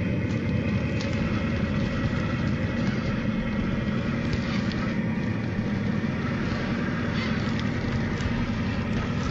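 Traxxas TRX-4 scale RC crawler's stock brushed electric motor and gearbox running steadily as it crawls over dead branches, with scattered clicks and crackles.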